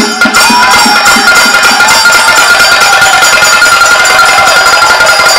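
Festival percussion ensemble with clanging metal cymbals playing a fast, steady beat, a held high note sounding over it.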